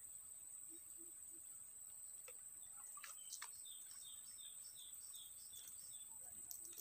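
Faint outdoor ambience: a bird gives a quick run of about eight short chirps near the middle, over a steady high-pitched hiss, with a few faint clicks.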